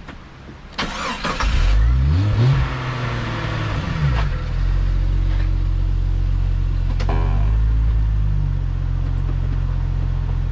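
Jeep engine surging about a second in, its pitch climbing and then falling back over a couple of seconds before it settles into a steady low-rev run.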